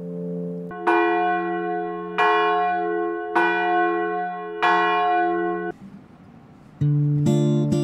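Four struck bell tones about a second and a bit apart, each ringing out and fading. Near the end an acoustic guitar starts playing.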